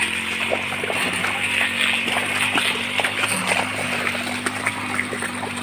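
Water buffalo and a wooden plough working through wet paddy mud: a steady run of small squelching clicks and sloshes, over a steady low hum.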